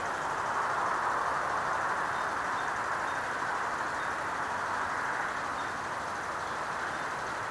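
Steady rushing outdoor background noise, with a few faint, short, high chirps scattered through it.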